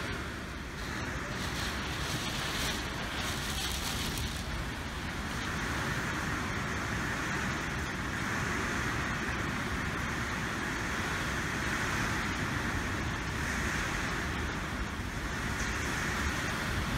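Hailstorm with heavy rain falling steadily: a dense, unbroken patter of countless small impacts.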